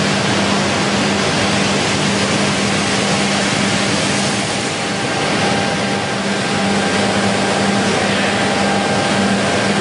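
Macmazza TS 70 beam saw running: an even, steady machine hiss with a constant low hum.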